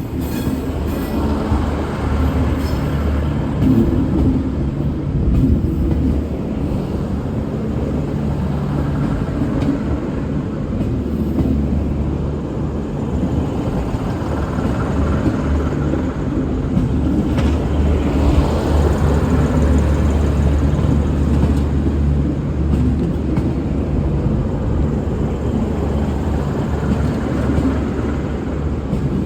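V/Line VLocity diesel railcar set running, a steady low engine drone with rail noise and a few light clicks, swelling slightly about two-thirds of the way through.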